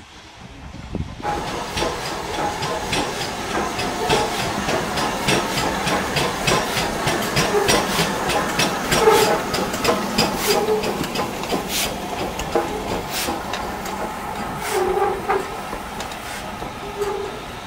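BR Stanier 8F 2-8-0 steam locomotive no. 48624 coming past with its train, steam hissing from the cylinder drain cocks, starting about a second in, with sharp clanks and clicks from the wheels and motion.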